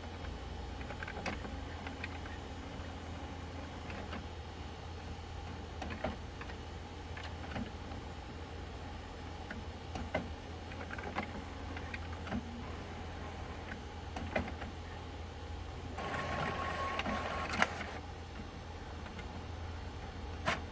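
HP OfficeJet Pro 8710 inkjet printer running its mechanism after the printhead is reinstalled: small motors humming and parts clicking, with a louder whirring stretch about sixteen seconds in.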